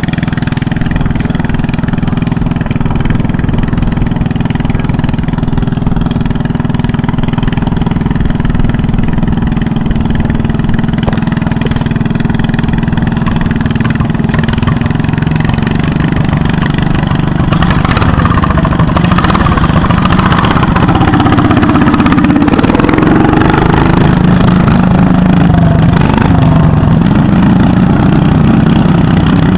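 Garden tractor engine on a John Deere lawn tractor running steadily, then revved higher and louder with a wavering, rising-and-falling pitch from about halfway through.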